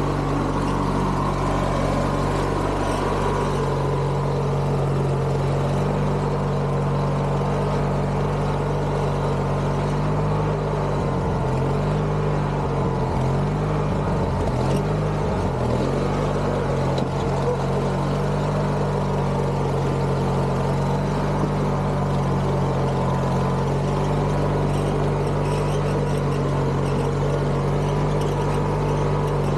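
Garden tractor engine running steadily, its pitch dipping and wavering for several seconds in the middle as the load changes, then settling back to an even note.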